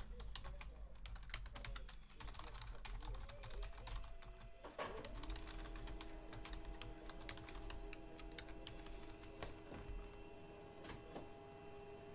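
Computer keyboard typing: quick, irregular key clicks, busiest in the first few seconds and thinning out later. A faint steady hum joins about five seconds in.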